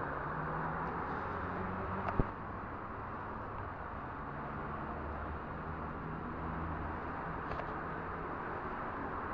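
Steady low hum and hiss of background noise, with one sharp knock or click about two seconds in and a faint tick near the end.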